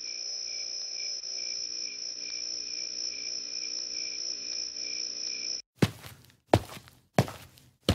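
Night-time cricket chirping, a steady high trill that cuts off suddenly about five and a half seconds in. Then a run of loud, evenly spaced thuds, about three every two seconds.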